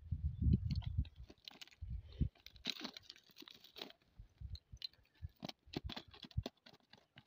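Cast net being handled on gravel: scattered clicks and crunches from its chain weights and the stones beneath, with a few dull thumps in the first second and again about two seconds in.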